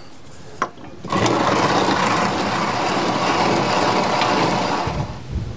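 Hand-cranked cast-iron grain mill with a flywheel grinding soft winter wheat berries into flour. A steady grinding noise starts about a second in, runs for nearly four seconds, then eases off.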